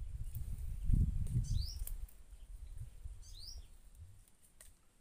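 A bird gives two short, rising chirps a couple of seconds apart, over a low rumble that fades after the first two seconds.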